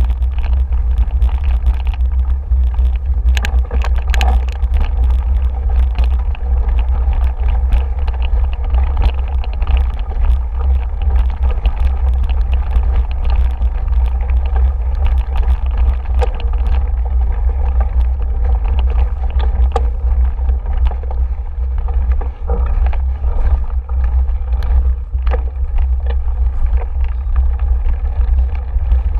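Steady low wind rumble on a bike-mounted camera's microphone while riding a dirt woodland trail, with frequent rattles and knocks as the bike goes over bumps.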